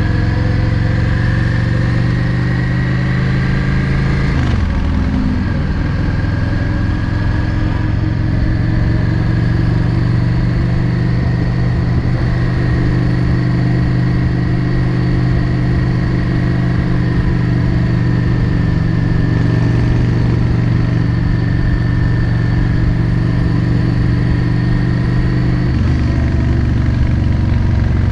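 Yamaha XVS 650 Drag Star's air-cooled V-twin engine running under way on the road. The revs climb a little, dip about four seconds in, hold steady and drop again near the end.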